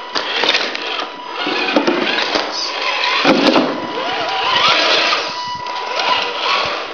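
Tamiya Ford F350 RC crawler truck's electric motor and gearbox whining as it climbs over brick rubble and a corrugated metal sheet, with tyres scraping and loose debris clattering and clinking.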